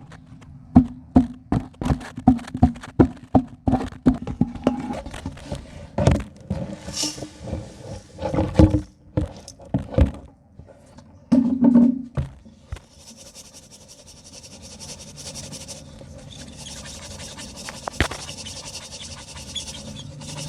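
Hardened pure cement pieces crumbled and snapped by hand, a quick run of sharp cracks and crunches with a brief scrape. It gives way about twelve seconds in to a steady hiss.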